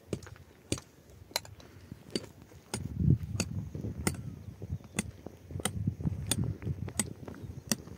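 Short-handled pickaxe digging into stony soil: sharp strikes about once every two-thirds of a second, with a low scraping of earth between them that grows louder about three seconds in.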